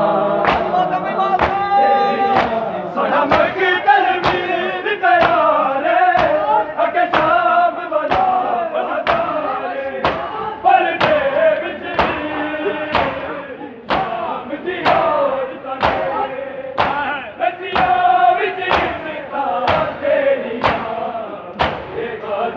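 A crowd of men chanting a noha in unison while beating their chests in matam. Their palm slaps land together in a steady beat, a little under two a second.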